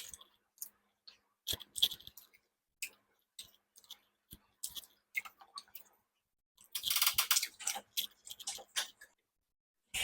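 Close-miked eating sounds: scattered wet mouth clicks and chewing, with a denser run of smacking and chewing about seven seconds in.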